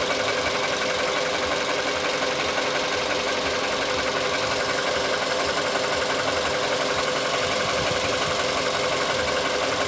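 Car engine idling steadily when fully warmed up, with a knocking noise in its running: the knock persists even at full operating temperature.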